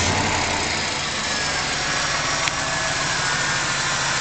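1994 Buick Roadmaster's LT1 5.7-litre V8 idling steadily just after starting, its revs easing down slightly, with the A/C compressor not yet engaged.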